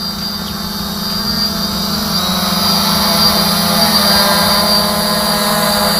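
FPV quadcopter's electric motors and propellers running with a steady whine that grows gradually louder.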